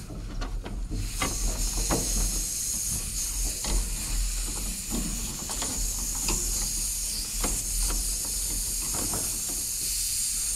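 Refrigerant hissing steadily from a thermostatic expansion valve as its power head is worked loose, starting about a second in, with light clicks and taps of hands on the valve and its capillary tubing.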